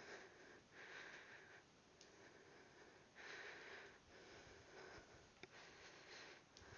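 Faint heavy breathing of a woman exerting herself in a workout, short breaths in and out every second or two, with a couple of light clicks near the end.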